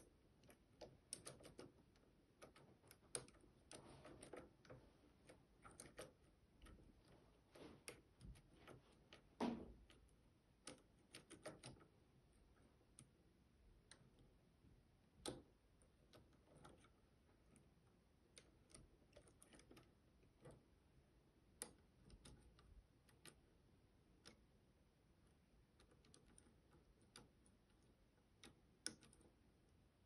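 Faint, irregular small clicks and ticks of a Rotorpick lockpicking tool being turned and adjusted in a Cisa RS3 S cylinder lock. The clicks come thickly for the first dozen seconds, then only now and then.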